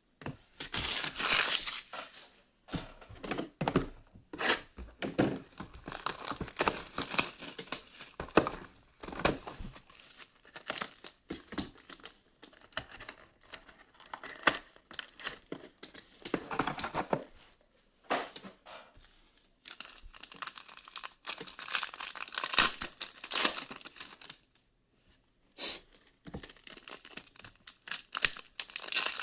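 Foil trading-card pack wrappers being torn open and crinkled by hand, in irregular bursts with short pauses between them.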